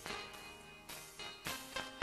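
Instrumental background music with sustained notes and several sharp note attacks.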